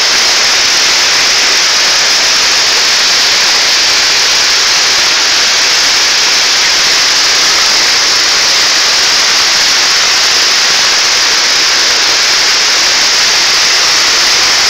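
A river in flood, brown and carrying debris, rushing: a loud, steady, hissing wash of water that does not let up.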